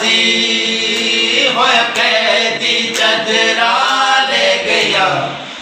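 A man singing a mournful Urdu devotional lament (noha) unaccompanied, drawing out long, wavering held notes, with a faint tap about once a second.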